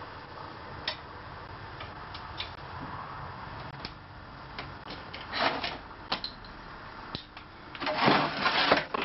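Hand tools working on a steel autocycle frame: scattered clicks and clinks of a spanner on metal fittings, with a short rattling burst about five seconds in and a longer, louder one near the end.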